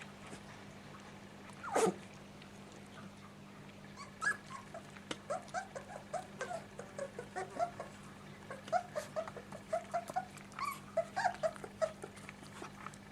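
Kleine Münsterländer puppies, 26 days old, whimpering and yipping: a dense run of short, high squeaks several times a second, after one louder yelp about two seconds in.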